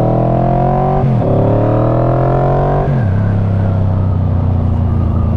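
1995 Yamaha Vmax 1200's V4 engine through a Delkevic carbon slip-on exhaust, accelerating: the pitch rises, drops with an upshift about a second in, rises again and drops with a second upshift about three seconds in, then holds steady at cruise.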